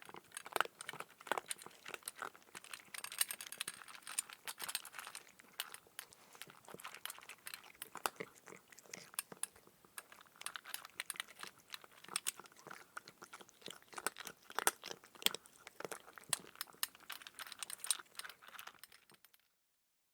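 Cat eating dry kibble: quick irregular crunches and clicks of the pieces being bitten, with small clinks against the bowl, stopping just before the end.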